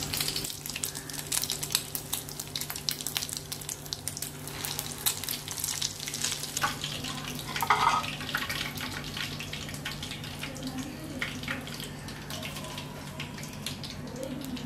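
Breadcrumbed, egg-coated mutton kebabs sizzling and crackling as they deep-fry in hot oil in a pan, the crackle thinning out toward the end. A brief knock about eight seconds in.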